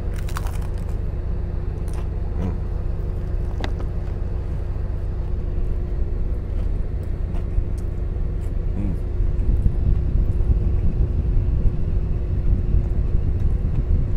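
Steady low engine drone, like an idling truck heard from inside its cab, with a faint steady hum above it. A few short crunches of biting and chewing a crispy fried taco shell in the first few seconds.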